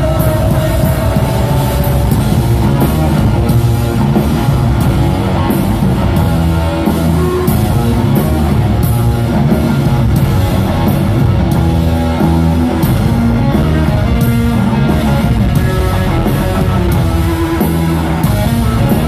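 Live rock band playing an instrumental passage: distorted electric guitar over a drum kit, with cymbals keeping a steady beat and no vocals.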